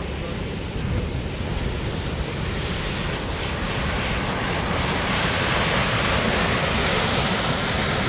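Steady rushing of a large waterfall plunging off a sea cliff into the sea, mixed with wind rumbling on the microphone. The water's hiss grows louder about five seconds in.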